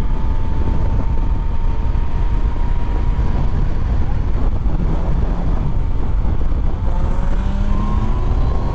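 Yamaha MT-09's inline-three engine on its stock exhaust running under way, its pitch creeping slowly upward, then climbing again near the end as the bike accelerates. Heavy wind rumble on the microphone lies under it.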